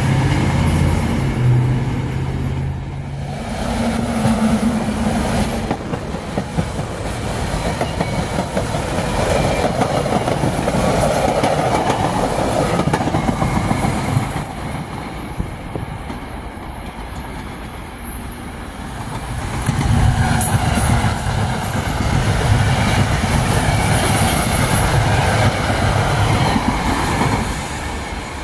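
SEPTA Silverliner IV electric multiple-unit commuter trains passing, wheels clattering over the rails. The sound eases off about halfway through and swells again as the next train comes by.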